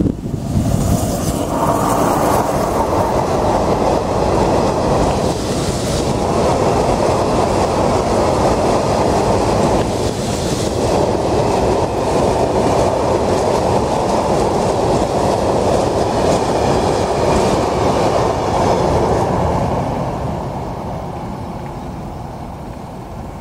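Freight train of Eas high-sided open wagons, headed by a class 131 electric locomotive, passing through at speed. The steady noise of the wagons' wheels on the rails holds for most of the pass, then fades away over the last few seconds.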